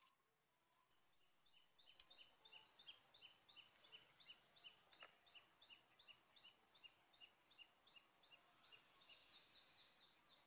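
A small bird calling a long, even series of short chirps, about three a second, quickening a little near the end. A single sharp click sounds about two seconds in.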